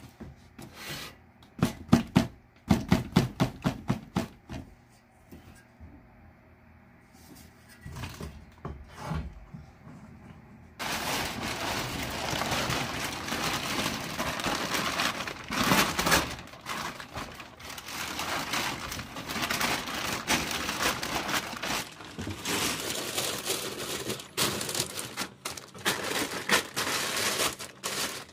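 A rusty steel crosscut saw blade clanking and knocking against cardboard in a run of sharp knocks. About eleven seconds in, this gives way to a blue polyethylene tarp crinkling and rustling continuously as a hand spreads and smooths it.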